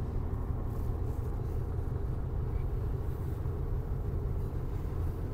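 Steady low rumble inside the cab of a moving 1996 Ford F-150 with its 5.0-litre V8: engine and road noise while driving.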